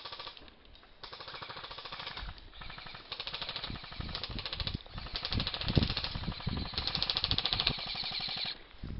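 Airsoft rifles firing long bursts of full-auto fire, a fast, even rattle of shots broken by short pauses and growing louder toward the end.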